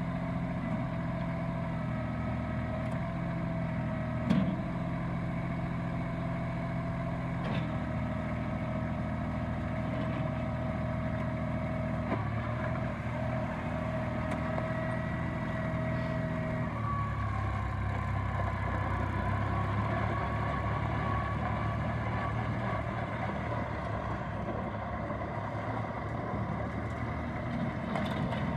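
Kubota L3300 tractor's diesel engine running steadily, with a faint steady whine above it. Its note changes about two-thirds of the way through, and there is a single short knock early in.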